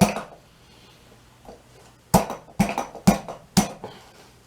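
Metal clanks of a manual bead breaker's foot being pushed under the tire bead against the wheel rim: one knock at the start, then four sharp knocks about half a second apart in the second half.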